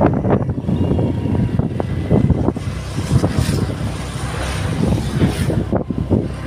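Vehicle noise: a steady low rumble with uneven, gusty peaks, and two swells of hiss about three and a half and five seconds in.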